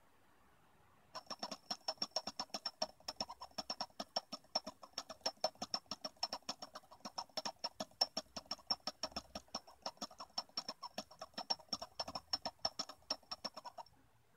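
Small brushless DC motor spinning a plastic typewriter daisy wheel at high speed: rapid, slightly uneven ticking with a high whine pulsing along with it. It starts abruptly about a second in and cuts off abruptly near the end.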